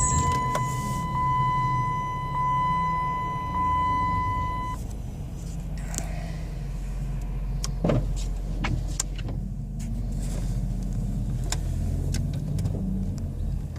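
A 2001 Dodge Grand Caravan's V6 engine idling just after being started, a steady low rumble. For the first five seconds or so a steady high-pitched electronic warning tone from the dash sounds over it, and a few sharp clicks follow later.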